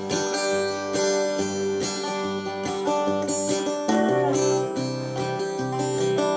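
Acoustic guitar strummed in a steady rhythm during an instrumental break, with a melody line played over it.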